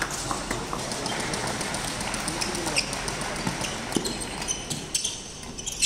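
Badminton doubles rally: rackets striking the shuttlecock in sharp smacks every second or so, mixed with players' shoes stepping and squeaking on a wooden court.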